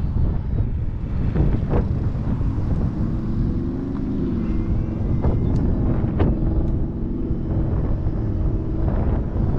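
Wind buffeting the microphone of a camera on a moving e-bike, a steady low rumble. A low humming tone rises and falls in pitch through the middle, and a few sharp clicks come through.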